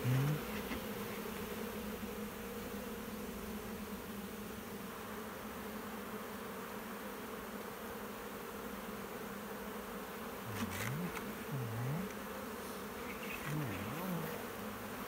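Honeybee swarm humming steadily. Several times near the end single bees fly close by, their buzz dipping and rising in pitch as they pass.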